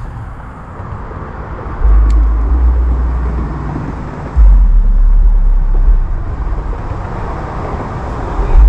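Road traffic passing on a roadside, a steady hiss of cars that swells twice. Over it a heavy low rumble cuts in and out suddenly and is the loudest sound.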